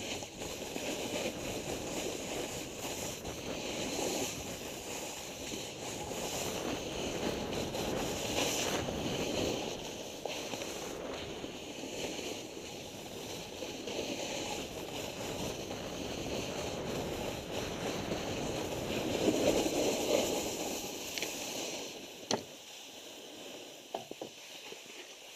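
Snowboard sliding and carving over snow, a steady rushing scrape mixed with wind on the microphone; it drops off about three seconds before the end, leaving a few light knocks.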